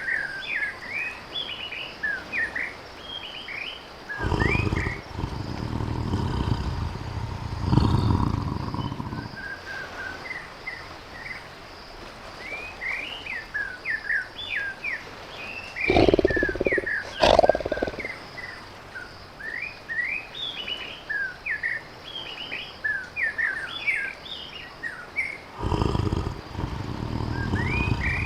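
Tiger growling and roaring in about five low, heavy bouts a few seconds apart, two of them close together just past the middle. Birds chirp continually in the background.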